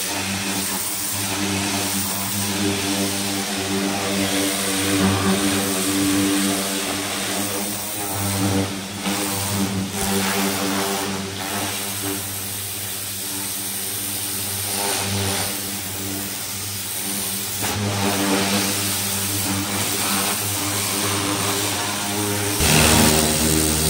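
Engine-driven pressure washer running steadily, its motor humming under the hiss of the water jet as it blasts paint residue off a chemically stripped car body. Near the end the engine note drops lower and grows louder.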